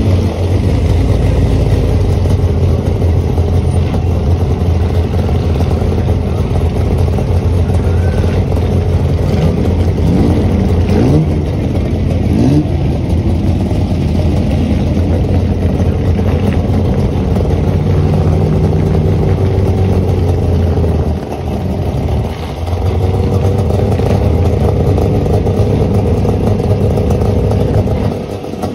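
Several 1950s sports racing car engines running in a slow-moving queue, a steady low idle with a few short throttle blips about ten to thirteen seconds in.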